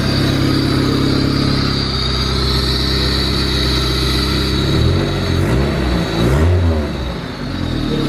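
Freshly rebuilt turbocharged Honda four-cylinder engine idling on one of its first runs, before break-in. It runs steadily at first, then its speed rises and falls unevenly for a couple of seconds near the end before settling back.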